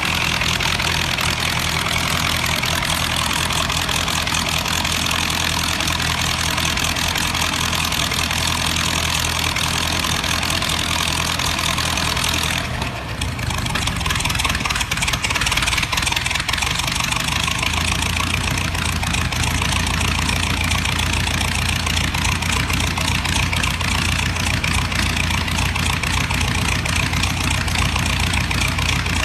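1924 Ford Model T four-cylinder engine running steadily, with a short break about halfway through.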